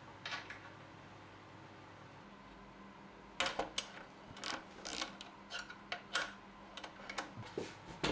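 Hand socket ratchet tightening a nut onto a bolt through a board: irregular bursts of clicking from the ratchet as the handle is swung back and forth, starting about three seconds in.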